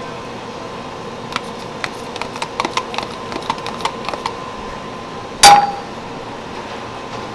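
Light clicks and taps of kitchenware as broth is poured into a stainless skillet, then a single sharp metallic clink with a short ring about five and a half seconds in, over a steady kitchen hiss.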